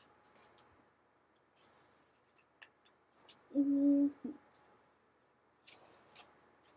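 Pages of a paperback manga volume being handled and turned, faint scattered paper rustles and clicks. Near the middle a person hums one short steady note, the loudest sound.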